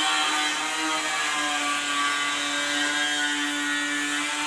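A small motor running steadily, a continuous whine held at one pitch.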